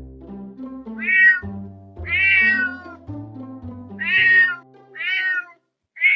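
Domestic cat meowing repeatedly, about four calls of around half a second each, the second one longer, with another starting right at the end. Background music with low stepping notes plays under the first calls and stops just after the fourth meow.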